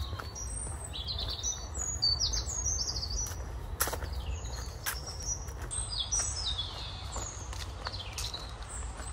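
Small songbirds singing: runs of quick high chirps that step down in pitch, repeated several times, over a steady low rumble.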